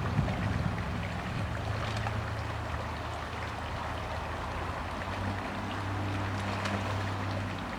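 Rushing stream water, with a steady low motor hum underneath that grows a little stronger about five seconds in.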